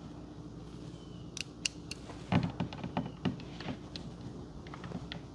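Screw being fitted into a deadbolt's mounting hardware with a screwdriver: a few sharp clicks about a second and a half in, then a run of irregular light knocks and clicks.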